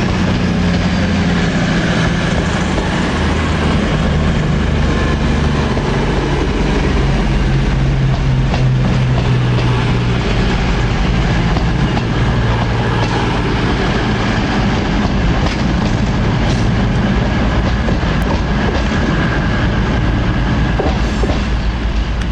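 CrossCountry Voyager diesel-electric multiple unit running through, its underfloor diesel engines droning steadily under the rumble of the wheels on the rails, with a few clicks over the track joints.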